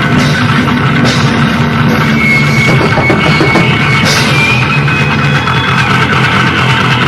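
Live rock band jamming: distorted electric guitar and a drum kit playing loud and dense, with a held high guitar note from about two seconds in.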